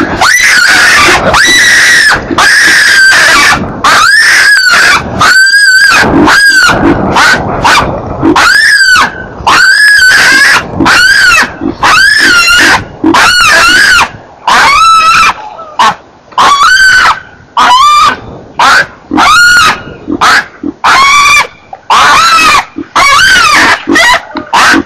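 Baby chacma baboon squealing over and over, about one loud call a second, each rising then falling in pitch. These are distress squeals, which the uploader puts down to an attempted snatch of the baby.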